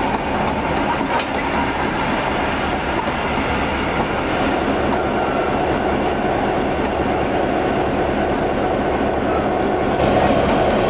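Heritage passenger carriages rolling past at close range: a steady noise of steel wheels running on the rails.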